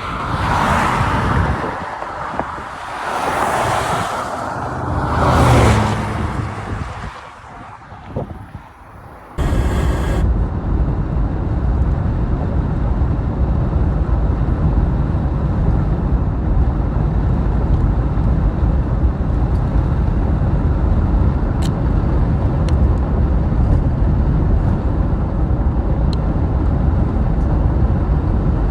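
Road vehicle noise. Three swelling passes come in the first several seconds, like vehicles going by. After an abrupt cut about nine seconds in, a steady low rumble of driving takes over, with a few faint ticks.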